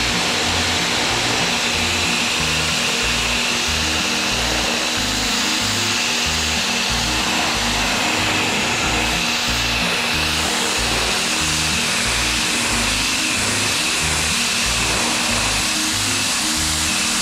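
Resqtech RSQ-PW101 1700 W electric pressure washer running, its jet hissing steadily as it blasts water onto concrete and tiles. Background music with a steady beat plays underneath.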